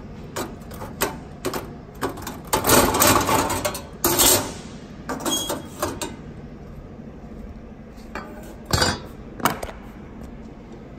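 Irregular metallic clanks and scrapes of plasma-cut sheet-steel pieces being handled and knocked against steel, with a longer scrape about two and a half seconds in and another around four seconds, and a few more sharp knocks near the end.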